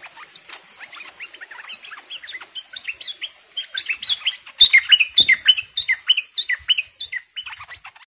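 Stripe-throated bulbuls calling in rapid, short downward-sliding chirps, the territorial calling of a wild bird drawn to a caged decoy; louder from about four and a half seconds in.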